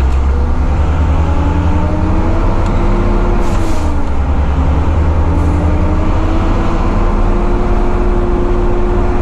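Volvo FH12 truck's straight-six diesel heard from inside the cab while the truck drives, a steady heavy rumble under load. The engine note climbs, dips with a short hiss a little under four seconds in, then climbs again and levels off.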